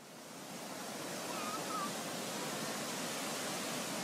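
A steady rushing noise, like wind or surf, fades in over the first second and then holds even, with two short warbling chirps about a second and a half in.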